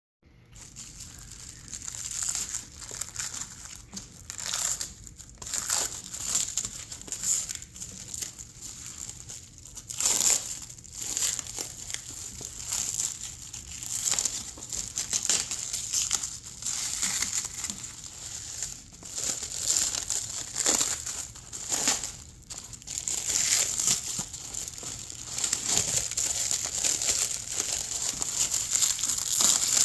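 Clear plastic shrink-wrap being torn and peeled off a cardboard box by hand: continuous crinkling with sharp crackles, getting busier and more sustained near the end.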